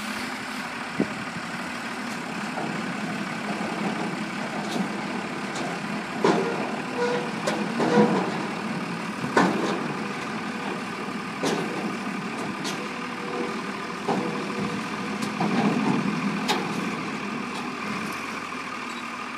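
Heavy truck engine idling steadily, with a few sharp clicks over it.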